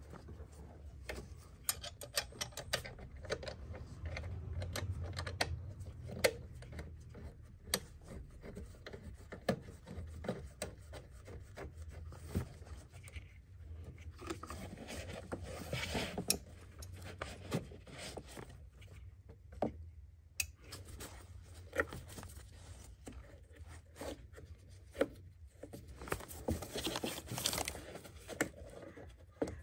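Hand-work under a car bonnet around the fuel filter: a gloved hand and a cloth rag rubbing and scraping against hoses and pipes, with many scattered small clicks and knocks of plastic and metal parts, over a low steady hum.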